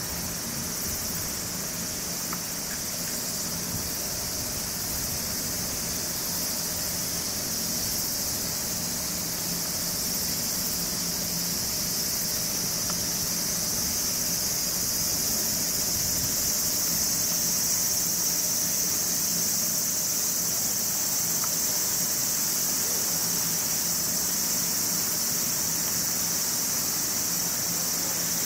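Steady, high-pitched chorus of insects chirring in the grass, swelling a little after the middle.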